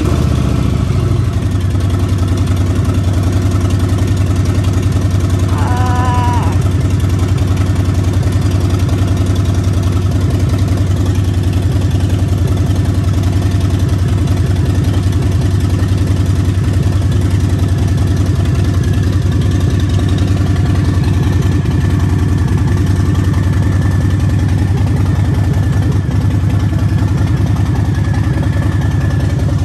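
2020 Harley-Davidson Fat Boy's Milwaukee-Eight V-twin idling steadily, its exhaust loud and open with the baffles pulled out of the mufflers.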